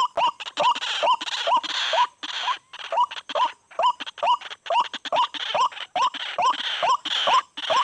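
White-breasted waterhen calling: a fast, monotonous run of short rising notes, about two to three a second, with rasping noise filling the gaps at times.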